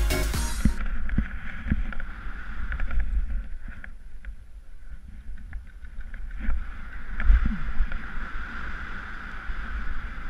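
Dance music stops in the first second, then a GoPro's own audio of skiing downhill: wind buffeting the camera microphone as a low rumble, with skis hissing and scraping over snow and a few knocks, the hiss swelling again near the end.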